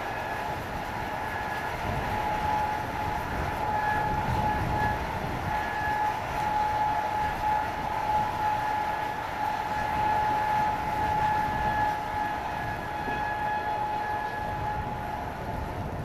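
Steady high whine from a parked jet aircraft's turbines, holding one pitch, over gusting wind rumbling on the microphone in a snowstorm.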